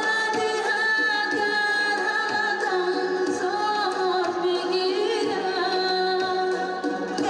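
A woman singing a Tajik song into a microphone, holding long, wavering notes over a small band of accordion, keyboard and plucked strings, with a drum keeping a steady beat.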